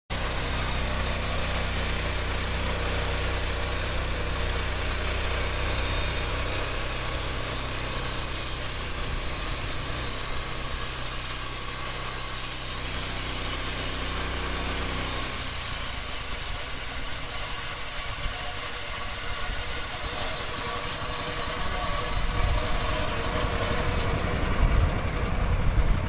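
Portable band sawmill's small gasoline engine running steadily while the band blade saws lengthwise through a log, with a high hiss from the cut. About halfway through, the low steady engine tone drops away as the blade reaches the end of the log.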